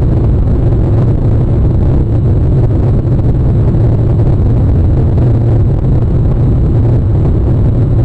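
Steady, loud low rumble of outdoor noise on a live-stream nest camera's microphone, with no distinct bird calls standing out.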